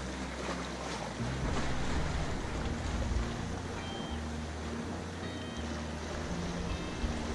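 Wind buffeting the microphone over the steady wash of sea against the rocks of a breakwater.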